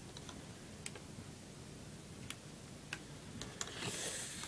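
Sparse small plastic clicks, about six spread over four seconds, as a laptop's palmrest cable connector and plastic casing are worked by hand, followed by a brief scraping rustle near the end.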